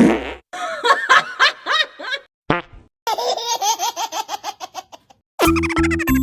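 Comic sound effects: two runs of rapid, high-pitched laughter, followed near the end by a low buzzing fart sound.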